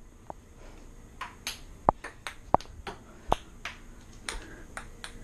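Ping-pong ball clicking off paddles and hard kitchen surfaces in a rally: a string of sharp, short ticks with a slight ring, a few louder than the rest.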